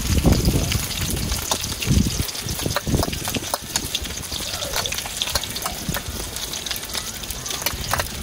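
Fish frying in oil in an iron kadai over a wood-fired clay stove: a steady sizzle with frequent small crackling pops. There is a low rumble in the first two or three seconds.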